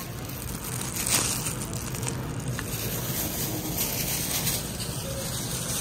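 Thin plastic shopping bag rustling and crinkling as it is handled, with louder rustles about one and two seconds in, over a steady low background hum.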